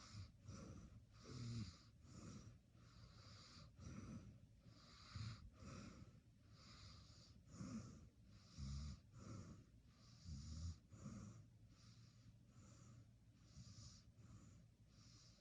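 Faint sleeping person breathing in a quick, wheezy rhythm, with several louder low snores.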